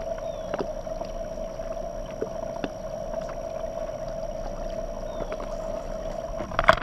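A bass boat's electric trolling motor hums steadily, over faint scattered clicks, with one sharp knock near the end.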